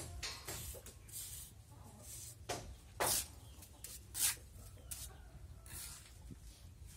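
Short gritty scrapes of a hand working wet cement-sand mortar, a string of separate strokes with the loudest about three and four seconds in.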